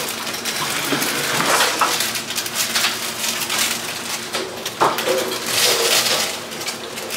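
Packet of dry Top Ramen instant noodles crinkling and crunching in the hands as the noodle block is broken up, with many quick crackles.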